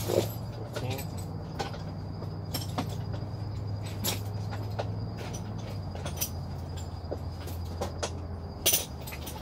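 Scattered metal clinks and knocks of tools and parts being handled at the engine during the motor-mount fit, sharpest just after the start and again near the end, over a steady low hum.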